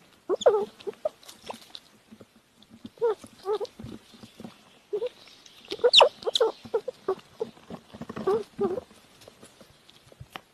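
Baby chipmunk eating, its small nibbling and crunching sounds coming in short clusters every couple of seconds, loudest about six seconds in.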